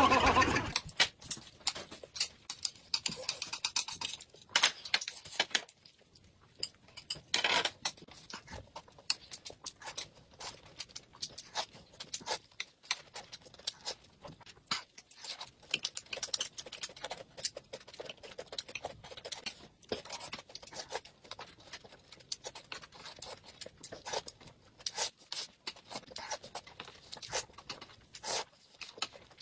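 Close-miked eating sounds from boiled dumplings: chewing and mouth smacks, mixed with many small irregular clicks from chopsticks tapping the plate. A louder stretch of music fades out in the first half second.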